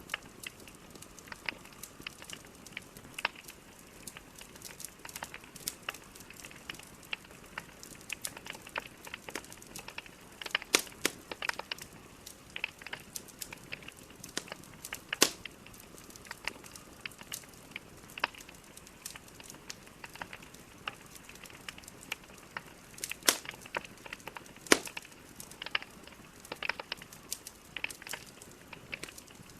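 Wood logs burning in a fireplace, crackling and popping steadily over a soft hiss, with a few louder snaps scattered through.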